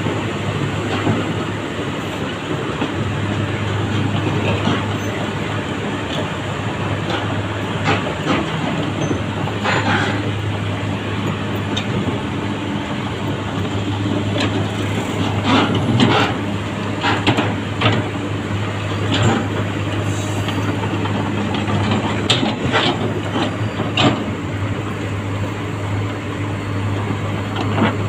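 Komatsu PC200 hydraulic excavator's diesel engine running steadily, with irregular sharp metal clanks and knocks from the machines' steel parts, thickest in the middle and second half.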